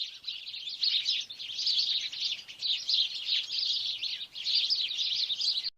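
A flock of small birds chirping and twittering densely, in several long bursts of high chatter with brief breaks between them.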